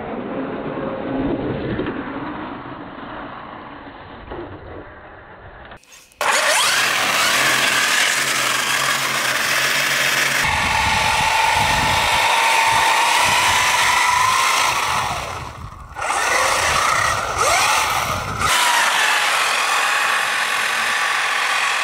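Large-scale RC desert truck on regular tyres driving on lake ice, its motor whining up and down in pitch as it accelerates and slows. About six seconds in, the sound cuts to a louder, clearer take.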